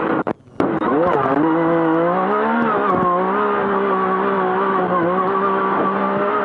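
Yamaha YXZ side-by-side's three-cylinder engine heard from inside the cab, racing over sand dunes. Just after the start the sound cuts out for a moment, then the revs climb steeply, dip once about three seconds in, and hold high and steady.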